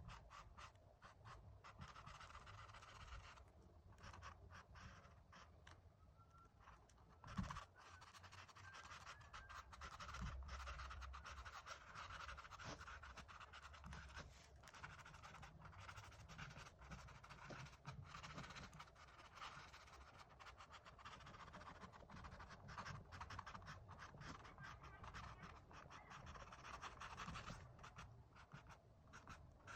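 Faint, steady scratching of oil-paint brush strokes on canvas, many short strokes, with a single knock about seven seconds in.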